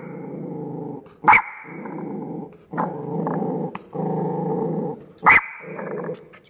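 A dog growling in about five long rumbles of roughly a second each, with a sharp bark about a second in and another near the end.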